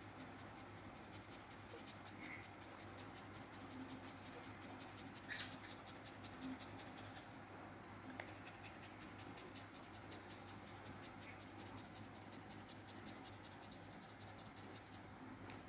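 Near silence in a small room: a steady low hum with faint scratching and rubbing, and a couple of soft clicks around the middle.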